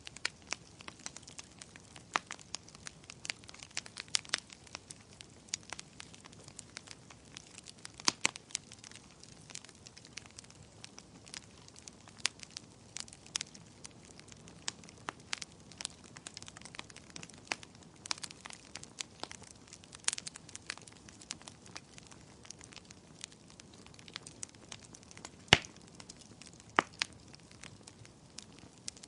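Fireplace fire crackling: irregular sharp pops and snaps over a soft steady hiss, with one louder pop near the end.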